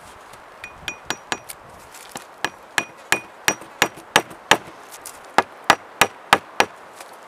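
Poll of an axe head tapping a wooden peg into a drilled hole, pinning a crosspiece to a bark-covered chair leg: a run of sharp wooden knocks, about three a second. The first few knocks have a faint ring, the knocks get louder in the second half, and there is a short pause a little before the end.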